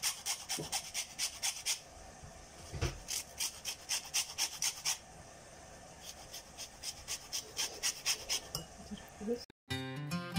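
Lemon rind being grated on a small metal grater: quick rasping strokes, about four a second, in runs with short pauses. Near the end the grating stops and acoustic guitar music begins.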